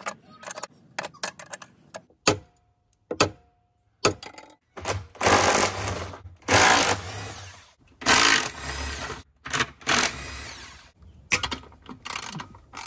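A cordless power driver runs in repeated bursts of about a second each, working out the jet pump's mounting bolts from the hull of a jet ski. Scattered clicks and knocks of handling come before the bursts.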